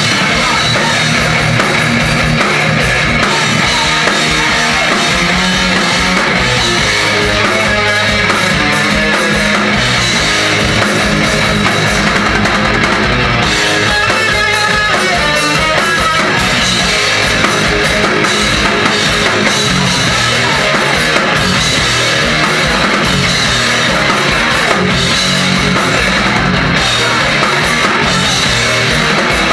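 Crossover thrash band playing live and loud: fast, driving drums under distorted electric guitars and bass.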